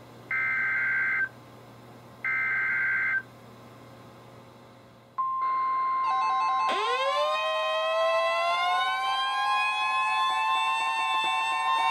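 NOAA Weather Radio EAS alert: the two final SAME header data bursts, each a harsh buzzy chirp about a second long, then about five seconds in the steady 1050 Hz warning alarm tone starts. A moment later weather radio receivers set off their alarms, one a siren-like tone that sweeps up in pitch and levels off, with pulsing beeps from others, signalling that a warning is being issued.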